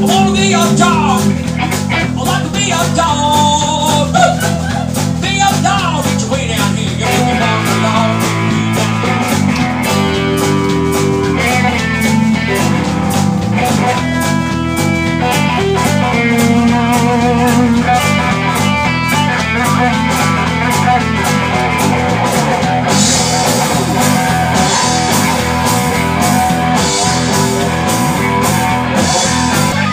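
Live blues-rock band playing loud: electric guitar, bass guitar and drum kit, with a lead line bending up and down in pitch in the first few seconds.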